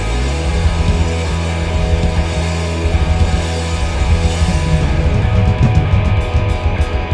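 Live rock band playing an instrumental passage with no vocals: electric guitar, bass and a drum kit with a steady wash of cymbals. A low note slides up at the start, and from about five seconds in separate drum hits stand out.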